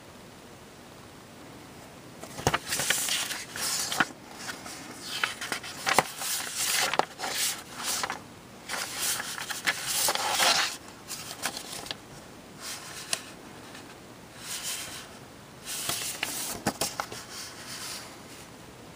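Paper and thin cardboard being handled: pages of a model kit's instruction manual flipped and the box shifted in the hands. It comes as irregular rustles with sharp crisp clicks, starting about two seconds in and coming and going until near the end.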